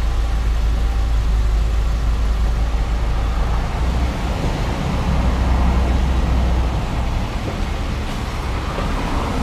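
Jeep Wrangler JK being driven: a steady low engine and tyre rumble with road noise, easing slightly for a moment near the end.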